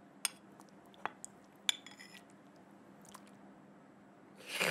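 Metal spoon clinking against a ceramic soup bowl during a meal: three sharp light clinks in the first two seconds, a few fainter ones after, and a short louder noise near the end.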